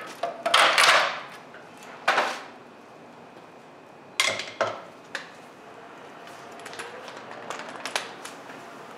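Plastic wheel cover pried off a steel wheel with a scraping clatter, followed by sharp knocks and clatters about two and four seconds in, then a few light clicks.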